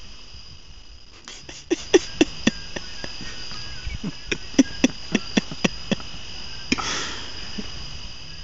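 Steady high insect trilling, cut by two runs of sharp knocks or claps, a few a second, about one to two and a half seconds in and again from about four to six seconds in; a short rustling rush follows near seven seconds.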